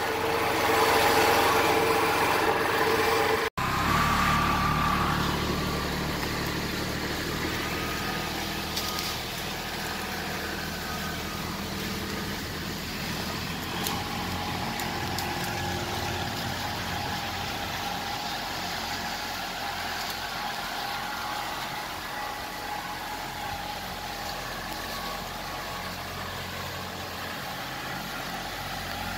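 Kubota L3901 compact tractor's three-cylinder diesel engine running steadily. The sound cuts out abruptly for a moment about three and a half seconds in and returns with a stronger, lower engine note.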